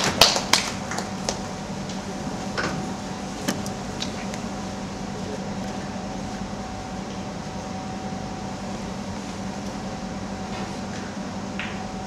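Steady hum of a room's ventilation, with a low tone and a higher tone held throughout. A quick run of sharp clicks comes in the first half second, and a few single clicks follow a few seconds in.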